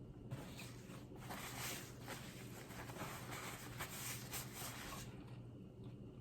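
Faint, crackly chewing of a BLT sandwich, a run of small clicks and crunches that quietens about five seconds in.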